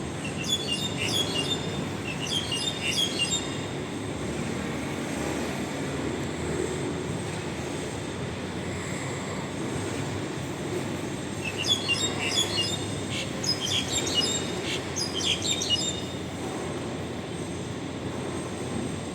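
A bird calling very loudly in two bouts of quick, high chirping phrases, one at the start and a longer one about twelve seconds in, over a steady low rumble.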